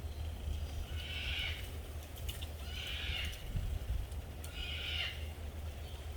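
Three similar animal calls, each about half a second long, high-pitched and falling at the end, coming roughly two seconds apart over a steady low rumble.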